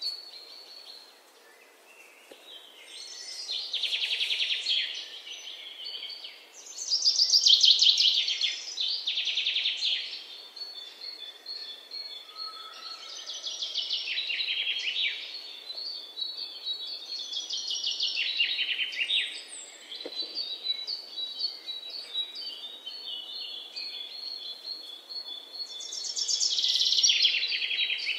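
Birds chirping and trilling: quick runs of high, rapid notes that come back every couple of seconds, with thin high whistles in between, over a faint hiss.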